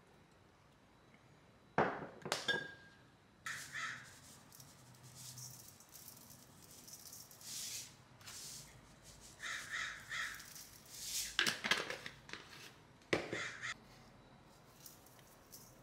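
A few sharp clicks from a sesame oil bottle's flip cap about two seconds in, then a series of harsh, rattling bursts over about ten seconds as sesame seeds are shaken from a shaker bottle onto spinach in a stainless steel bowl.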